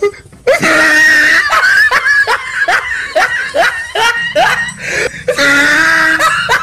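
Loud, shrill human laughter. It opens with a held cackle about half a second in, goes into a run of quick rising 'ha' sounds, and breaks into another long cackle around five seconds in.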